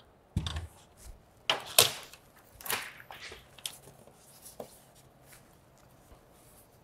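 Plastic packaging crinkling in a few short rustles, the loudest about two seconds in. It dies away in the last couple of seconds.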